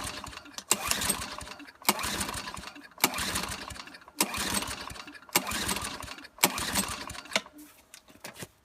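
Recoil-start rope on a 3.5 hp Tecumseh lawnmower engine being pulled about seven times, roughly once a second. Each pull is a sharp snap followed by a short whirr as the engine turns over without firing. The engine is cold, has sat for months and has a primer bulb that does not work, and it does not catch.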